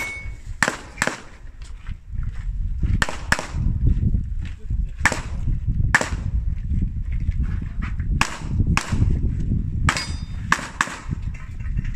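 Pistol shots fired on an IPSC stage, mostly in quick pairs with short pauses between groups, about a dozen in all, over wind rumbling on the microphone. A short high beep right at the start, the shot timer's start signal, comes just before the first shot.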